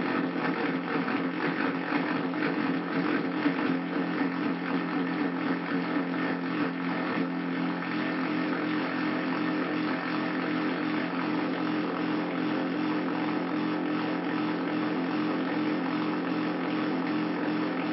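Handmade Arduino drone synthesizer sounding a continuous low, gritty drone with a rough, fluttering grain; about halfway through the flutter settles and the drone holds steadier.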